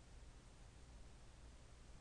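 Near silence: faint steady hiss and low hum of the recording.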